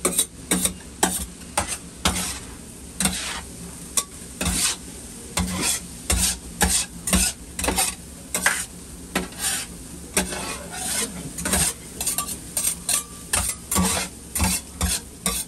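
Metal spatulas scraping and turning food on a hot iron griddle, in uneven strokes about one or two a second, over a steady sizzle.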